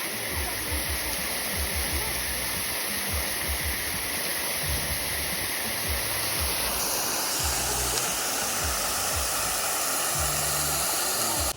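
Steady rushing noise of falling or flowing water, with irregular low rumbles underneath; it cuts off suddenly at the end.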